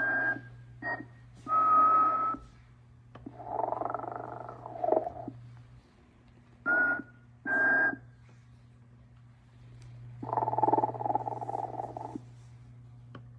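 1994 Telco Motionette animated Sleeping Santa figure playing its snoring-and-whistling sound loop. Short, high, steady whistle toots alternate with two longer snores, one about three and a half seconds in and one about ten seconds in, over a steady low hum.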